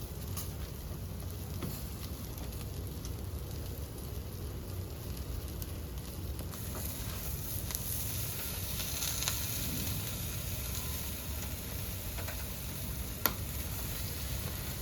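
Steady sizzling hiss, with a single sharp click near the end.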